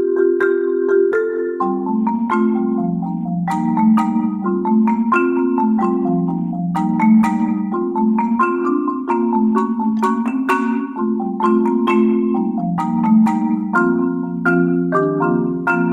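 Solo marimba played with four mallets: sustained low notes held under a running line of struck higher notes.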